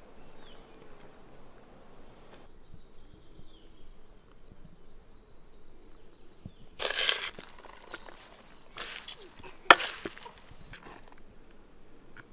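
Shredded cabbage and carrot being worked with a wooden spoon in a wooden bowl. Past the middle come two short rustling scrapes, then a sharp knock of wood on wood, the loudest sound. Before that there is only a faint steady background.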